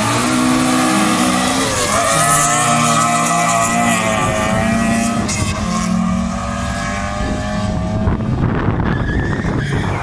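Two street cars launching from a drag strip start line and accelerating hard side by side, their engines climbing in pitch and dropping back at each gear change several times.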